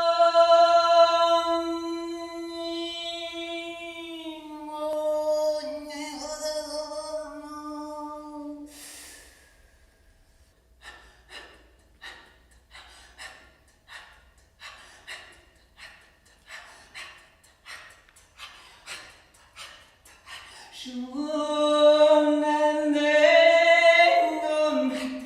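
A single unaccompanied voice singing long held notes. The first note lasts about nine seconds and drops a little partway through. It gives way to a run of short separate sounds, about one a second. A second held note comes in near the end and slides down as it finishes.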